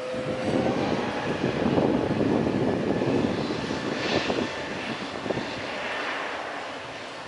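Airbus A320neo airliner's jet engines passing by, a dense steady rushing noise that is loudest in the first few seconds and then slowly eases off.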